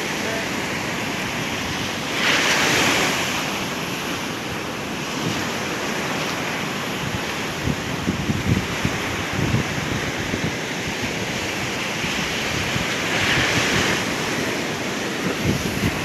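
Ocean surf breaking on a sandy beach: a steady wash of rough sea, swelling louder twice as waves break, about two seconds in and again near the end. Wind buffets the microphone in low gusts.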